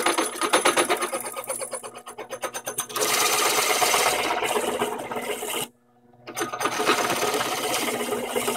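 Drill press running with its bit boring through a 2x4. It starts with a fast, even chatter, then settles into a steadier cutting sound. It stops abruptly for about half a second near six seconds in, then comes back.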